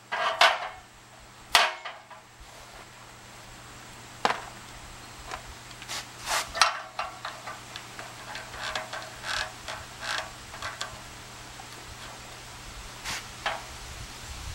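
Knocks and clicks of tools and workpieces being handled: two sharper knocks in the first two seconds, then a scattered run of lighter taps and clicks, over a steady low hum.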